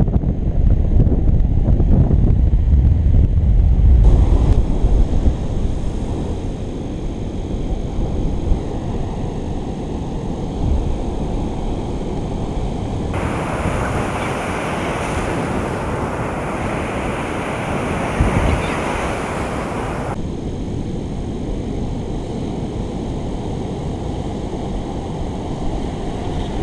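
Heavy storm surf breaking on a beach in a strong tropical-storm wind, with gusts buffeting the microphone and rumbling most heavily in the first few seconds. A brighter hissing rush joins for several seconds in the middle.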